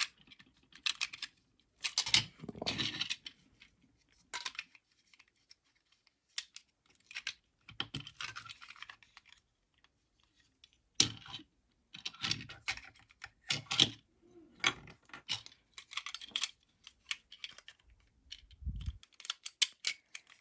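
Hard plastic parts of a Transformers action figure clicking and rattling as its joints are moved and pieces are handled, in irregular clusters of sharp clicks. There is one dull thump near the end.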